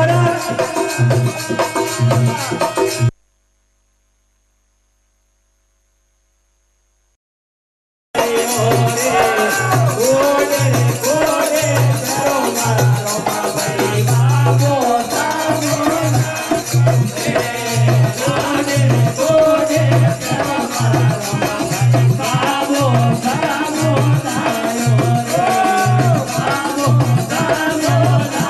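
Live Rajasthani devotional folk music: voices singing over a steady low drum beat and shaken rattle-type percussion. About three seconds in, the sound drops out completely for about five seconds, then the music resumes.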